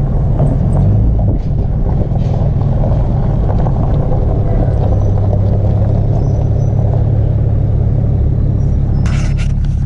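Pickup truck engine running steadily at low speed, a deep even rumble heard from inside the cab. A few short clicks near the end.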